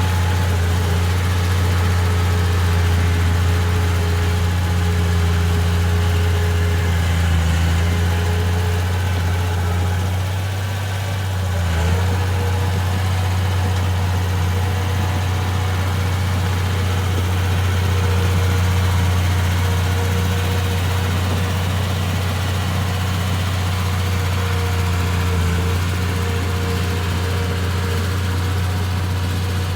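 Komatsu D31P bulldozer's diesel engine running steadily at a low, even hum. About ten seconds in its note sags briefly, then picks back up slightly higher and carries on steady.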